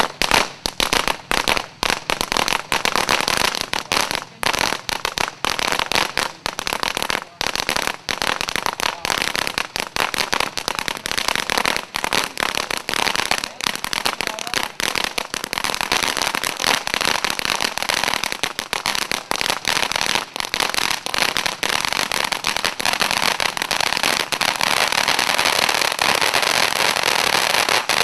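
Gold crackling volcano, a 13-inch ground fountain firework, going off: a dense, rapid crackle of popping stars that starts suddenly. Over the last few seconds a steadier rushing spray builds under the crackle as the fountain's jet grows.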